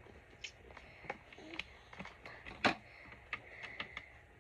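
Plastic Lego bricks clicking as they are handled and fitted onto a build: a string of sharp, irregular clicks, the loudest about two and a half seconds in.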